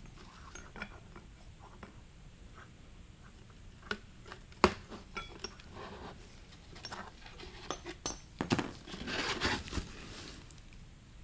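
Metal transmission parts clinking and scraping as they are handled and worked into place. There is a sharp click about four and a half seconds in, and a denser run of scraping and clinks near the end.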